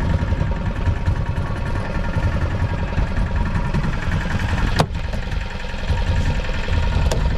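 Small fishing boat's engine idling steadily with a low rumble. One sharp click sounds a little before five seconds in.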